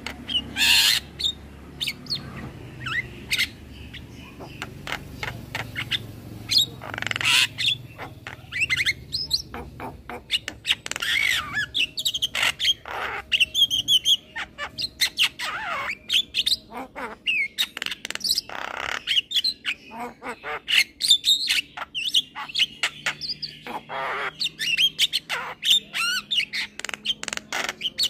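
Young male Javan myna singing a fast, varied run of squawks, whistled glides and clicks. The calls are scattered at first and come thick and continuous from about ten seconds in.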